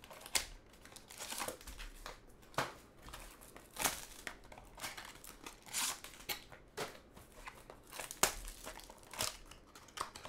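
Foil trading-card pack wrappers and clear plastic card wrap crinkling and tearing as packs are handled and opened by hand, in irregular sharp crackles.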